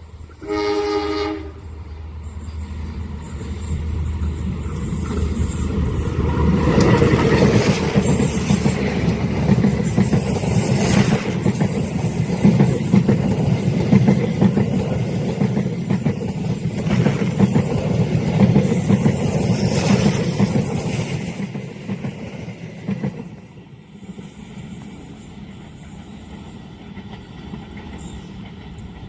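A train horn sounds one short blast, then a long Indonesian train approaches and passes at speed, its rumble building, staying loud for over ten seconds, and fading away near the end.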